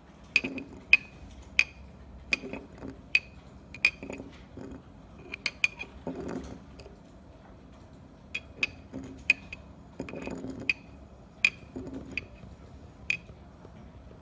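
Metal spoon stirring water and garnet sand in a glass jar, clinking sharply and irregularly against the glass, with soft swishing of water and sand between the clinks.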